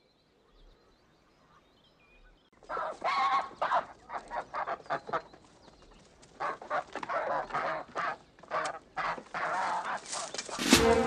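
A flock of domestic white geese honking and calling over one another in short, repeated calls, beginning about two and a half seconds in after a near-quiet start. A louder sudden sound comes right at the end.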